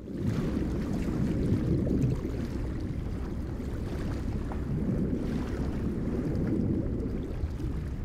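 Ocean waves heard underwater: a deep, muffled rushing surge that comes up quickly at the start, then holds, rising and easing slightly.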